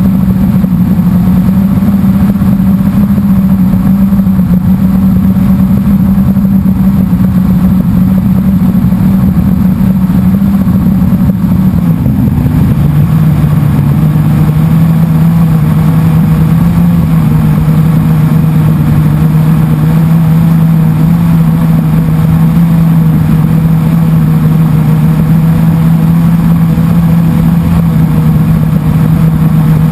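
Blade 350 QX quadcopter's brushless motors and propellers humming steadily in flight, heard loud and close from its onboard camera over a whirring hiss. About twelve seconds in the hum drops a little in pitch and holds there.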